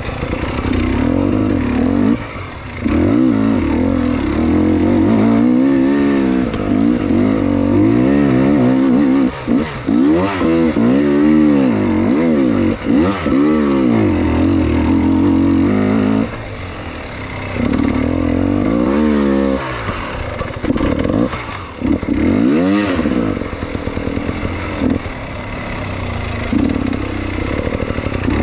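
Enduro dirt bike engine heard from on the bike, revving up and down again and again as the throttle is worked on the trail, with a few brief drops when the throttle is closed.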